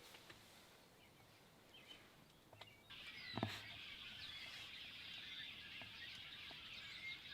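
Faint chorus of wild birds, many small chirps calling together, starting abruptly about three seconds in, with a single sharp knock just after.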